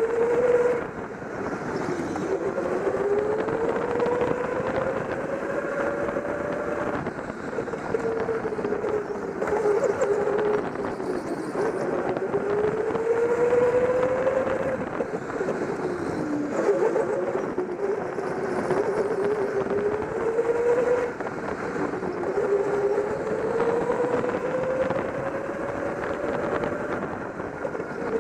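Indoor go-kart's motor, heard from the driver's seat, rising slowly in pitch as the kart speeds up along each straight and dropping sharply as it slows for a corner, about four times.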